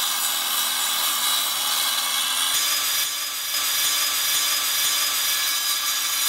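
Wet tile saw's spinning blade cutting a one-inch concrete deck tile, then grinding along the cut edge with the tile held at an angle to ease the sharp edge. A steady high whine and grind, its tone shifting slightly about two and a half seconds in.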